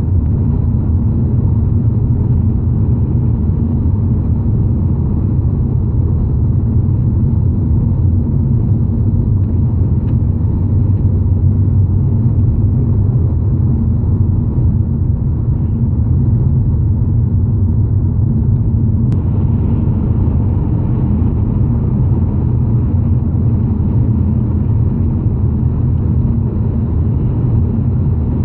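Steady low rumble of tyre and engine noise inside a BMW's cabin, driving along a motorway.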